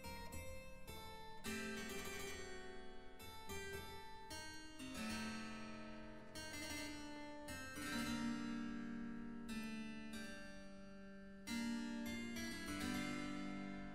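Instrumental background music played on a keyboard instrument, notes struck in quick succession.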